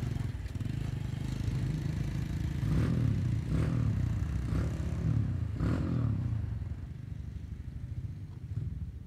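A motor vehicle engine running, with a low steady drone and a few rises and falls in pitch through the middle, like light revving. It eases off toward the end.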